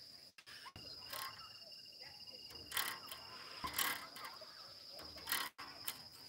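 Insects trilling outdoors in one steady high tone, joined for a few seconds by a second, lower steady tone. Several brief rustles or knocks, most likely from the hand-held phone, cut across the trilling.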